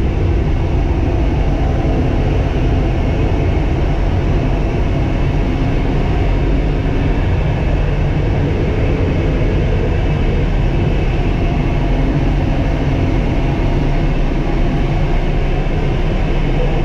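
Trepel Challenger pushback tug's engine running steadily under load during a pushback, a loud, even, low rumble with no breaks.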